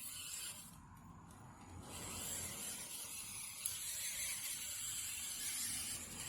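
Toy RC car driving, its drivetrain making a steady mechanical rushing whir that picks up about two seconds in.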